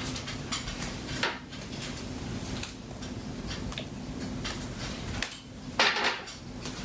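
Handling sounds from a stainless steel mixing bowl with a wooden spoon in it: scattered light knocks and scrapes, with a louder clattering rustle about six seconds in. A low steady hum runs underneath.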